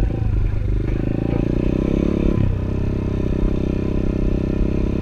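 Small 110cc four-stroke pit bike engine running under throttle as the bike is ridden, its note dipping briefly twice, within the first second and about two and a half seconds in, before picking back up.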